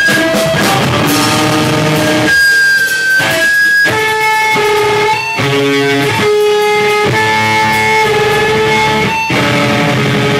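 Rock band playing live in a small room: electric guitar chords held for a second or two at a time, then changing, over drums.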